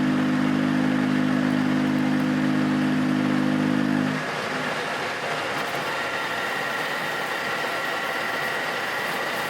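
Metal lathe running: a strong, steady low motor hum that cuts off abruptly about four seconds in, then quieter steady machine noise with a faint high whine joining about six seconds in.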